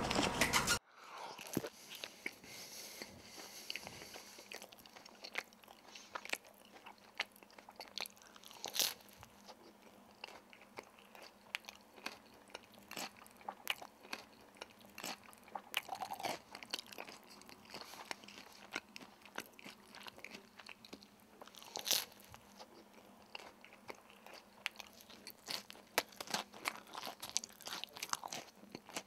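Soft, irregular crackling and crunching clicks close to the microphone, with louder crackles about nine and twenty-two seconds in.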